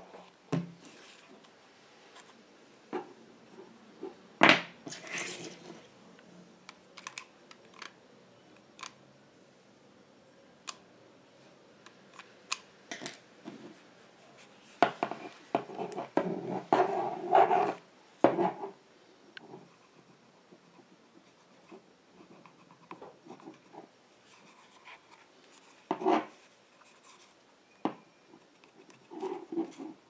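Close-up handling of leather wrapped over a seat-belt buckle, with a marking pencil scratching on it: scattered light taps and scrapes, a sharper knock about four seconds in, and a few seconds of denser rustling and scraping past the middle.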